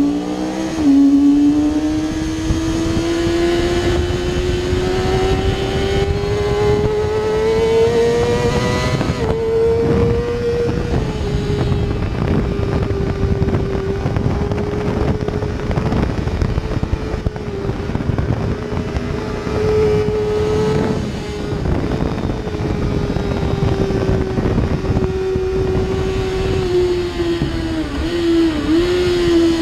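2007 Kawasaki ZX-6R's inline-four with an Akrapovic Evolution exhaust, running hard at high revs, heard onboard with wind rushing over the microphone. The engine note drops briefly about a second in as it changes up. It then climbs steadily for several seconds, with a short break around nine seconds in, and holds high with small dips. Near the end it dips a couple of times and falls in pitch.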